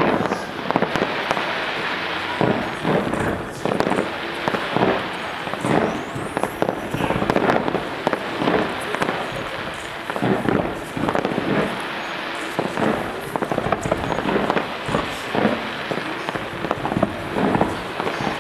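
Fireworks display going off in a continuous barrage: rapid bangs and pops over a steady crackle, several reports a second with no break.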